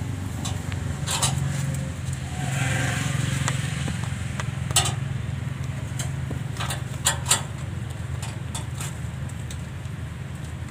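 A few sharp clicks and scrapes, about four in all, as a greater coucal pecks and claws at a snake on a concrete floor, over a steady low hum.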